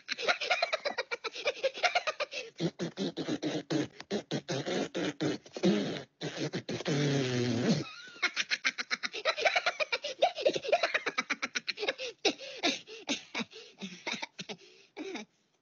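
Minions' high cartoon voices laughing and babbling in a rapid run of short syllables. There is a longer drawn-out vocal cry about six and a half seconds in.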